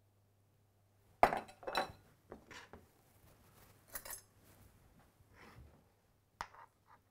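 A metal spoon and other utensils clinking and knocking against dishes: two sharp knocks about a second in, scattered lighter clinks after, and another knock near the end.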